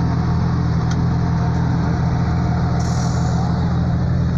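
Off-road race truck's engine idling steadily.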